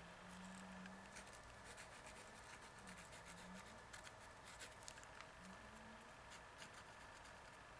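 Faint scratching and small irregular ticks of a fine-tip pigment liner pen drawing short strokes on a gesso-primed teabag. A faint low wavering hum comes and goes.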